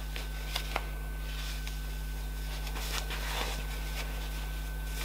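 Soft rustling of scuba crêpe fabric as a pair of trousers is held up and handled, with two light clicks about half a second and a second in, over a steady low hum.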